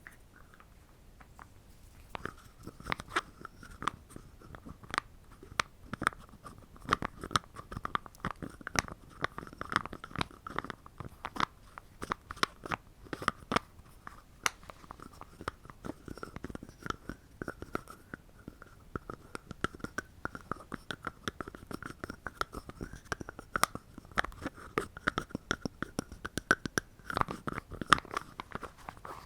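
Close-miked ASMR trigger sounds: rapid, irregular clicks and crunches starting about two seconds in, over a faint wavering high tone.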